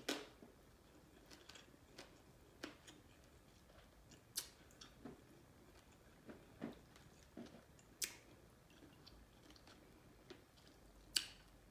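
Faint, close-miked chewing of soft, saucy food, with wet mouth smacks and a handful of sharp clicks spread through.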